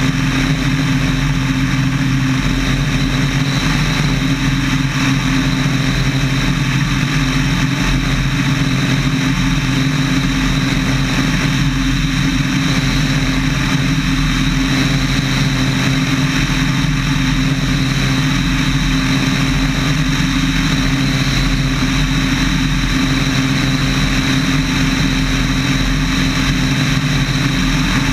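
Small airplane's engine and propeller droning steadily in cruising flight, heard from a camera mounted on the aircraft, with a constant rush of air over the microphone.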